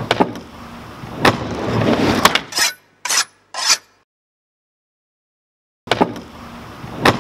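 Skateboard wheels rolling across a wooden mini ramp, with several sharp clacks of the board hitting the ramp and coping. The rolling cuts off abruptly about two and a half seconds in, two short hissing bursts follow, and the rolling and clacking start again near the end.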